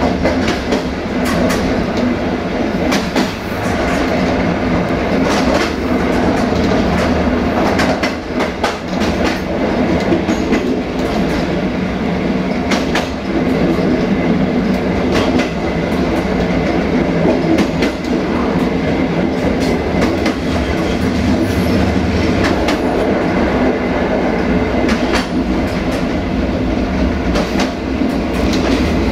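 Passenger train coach rolling along the track at speed: a steady running rumble of wheels on rail, with frequent irregular clicks as the wheels pass over rail joints.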